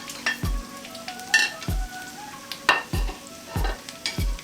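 Rice and vegetables frying in a pan while being stirred with a spatula, which knocks against the pan about seven times.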